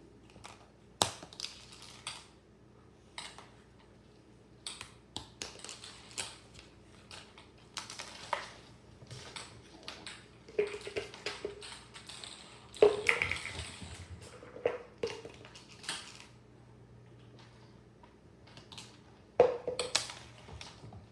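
Toy discs clattering and skidding across the floor as they are flicked and batted by kittens: scattered sharp clicks and short scrapes, the loudest about a second in, midway through, and near the end.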